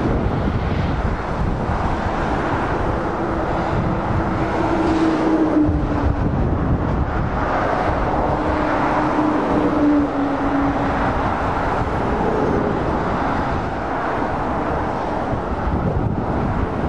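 Steady road traffic noise from lorries and cars passing on a dual carriageway, with a humming tone that slowly drops in pitch between about four and eleven seconds in as a lorry passes.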